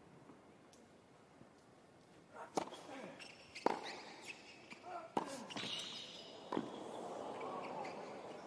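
Tennis rally on a hard court: rackets strike the ball as sharp pops about every one to one and a half seconds, with softer bounces between. Faint voices run underneath.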